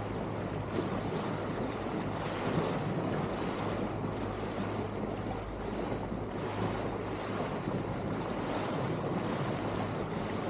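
Small cabin motorboat under way at sea: a steady rush of wind and water with a low steady hum underneath.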